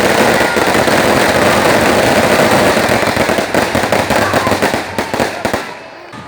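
A rapid string of firecrackers going off in a dense, continuous crackle. It thins to a few separate pops about five seconds in and dies down near the end.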